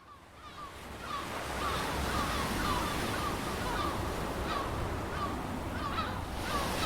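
Ocean surf washing steadily, fading in over the first second or so, with short bird calls repeating about three times a second.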